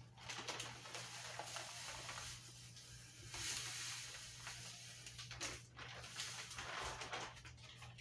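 Powdered laundry detergent poured from a plastic bag into a plastic tub: a soft, faint hiss with rustling of the bag, strongest a little past three seconds in.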